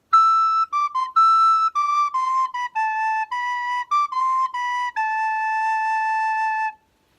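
Solo recorder playing the closing phrase of a cartoon theme-song melody: a run of short, clear notes, then one long held final note that stops cleanly about a second before the end.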